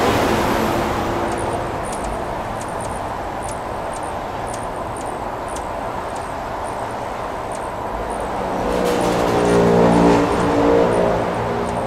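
Road traffic: a steady wash of passing cars that begins abruptly, with one vehicle passing closer and louder about nine to eleven seconds in. Faint short high chirps are heard throughout.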